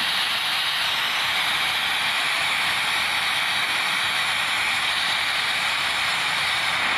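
iPhone 12's iOS 15 Background Sounds feature playing "Bright Noise" through the phone's speaker: a steady, even hiss weighted toward the treble.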